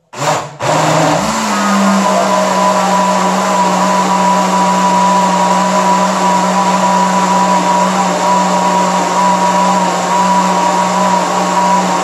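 Mondial countertop blender motor running at speed, churning thick homemade soap batter (oil, caustic soda, powdered detergent and fabric softener). It gives a short burst, cuts out for a moment, then starts again and spins up over about a second to a steady whirr.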